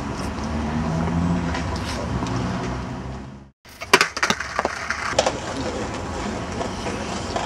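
Skateboard clacking on stone paving: a quick run of sharp knocks of the board and wheels hitting the ground, after a sudden brief dropout about halfway. Before the dropout, a steady low city rumble.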